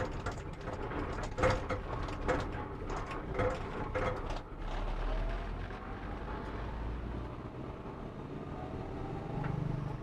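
A moving vehicle on the road: engine and road noise, with a deeper rumble swelling for a couple of seconds around the middle.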